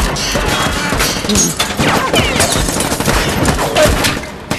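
Automatic rifle fire: many shots in quick succession.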